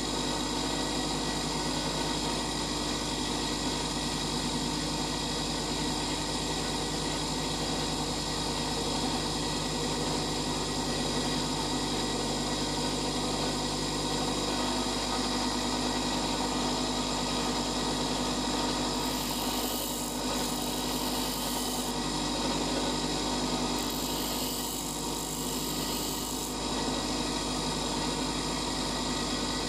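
Bench grinder running steadily while a twist drill bit is ground on its wheel, sharpening the bit's point. Two short stretches of brighter, hissier sound come about two thirds of the way through.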